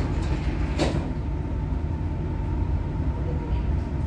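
Dubai Metro train cabin as the train starts to pull away: a steady low rumble, one sharp clunk about a second in, and a faint steady whine that sets in just after it.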